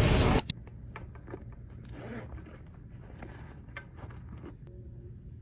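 Loud traffic noise cuts off abruptly just after the start, with a sharp click. What follows is soft close-up handling sounds in a quiet room: scattered light clicks, taps and scrapes, such as a zip or small objects being handled.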